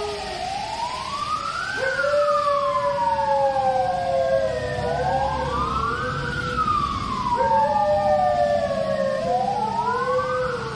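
An emergency-vehicle siren wailing, sweeping up and then slowly down about every four seconds. A husky howls along with it in long held notes, starting about two seconds in and again near seven and ten seconds in.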